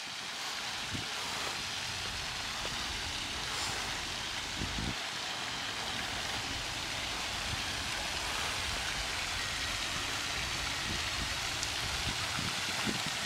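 Steady splashing hiss of pond aerator fountains spraying water and falling back onto the pond, with an uneven low rumble underneath.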